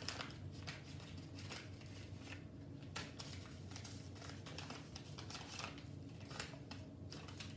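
Faint crinkling and light irregular clicks of small ration accessory-kit packets being handled and sorted.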